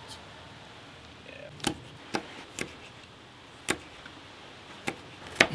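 A meat cleaver chopping on a cutting board: six sharp, irregular knocks spread over a few seconds, the last near the end the loudest.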